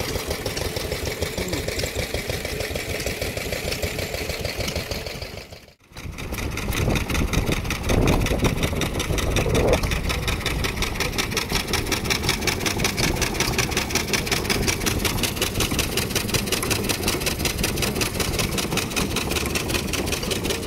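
Vintage single-cylinder stationary engines running steadily with a fast, even beat. About six seconds in the sound cuts out briefly, then another stationary engine carries on somewhat louder.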